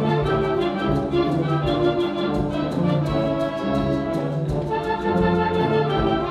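Concert band playing a Latin dance piece: brass and woodwinds holding full chords over a steady percussion beat.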